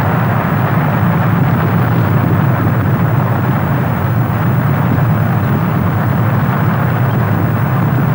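Rocket engine firing at lift-off: a loud, steady, rushing rumble that holds at one level throughout.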